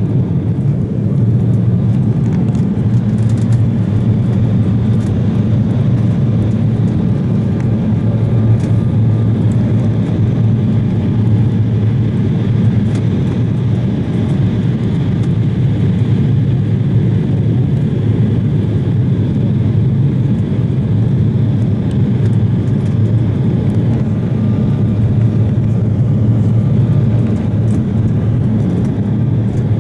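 Steady cabin roar inside an Embraer 170 regional jet in flight: engine and airflow noise, strongest as a low rumble, with a few faint clicks now and then.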